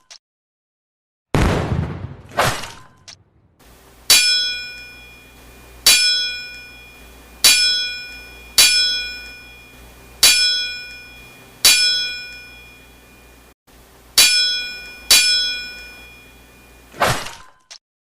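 Sound effects: a couple of crashing impacts, then eight sharp metallic clanks that each ring on over a low steady hum, spaced one to two seconds apart, and a last crash near the end.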